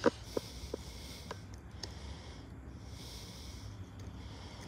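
A person breathing close to the microphone, each breath swelling and fading, with a few light clicks in the first two seconds.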